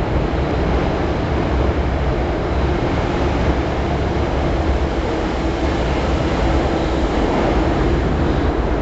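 MTR Island Line M-Train (Metro-Cammell electric multiple unit) running out of an underground station: a steady rumble of wheels and motors with a faint steady hum.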